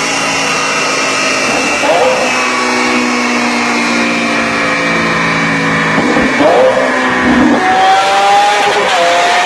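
Lamborghini Aventador LP700-4's V12 engine running loud under load on a chassis dynamometer, its pitch climbing slowly, with changes in the note about two seconds in and again about six seconds in.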